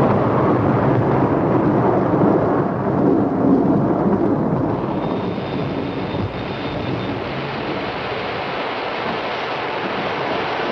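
Continuous rumbling noise with no pitch, heavy in the low end, a little quieter from about six seconds in.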